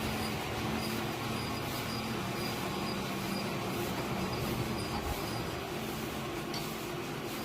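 Sawmill machinery running steadily: a low hum with a faint high whine over it, with no sharp change in load.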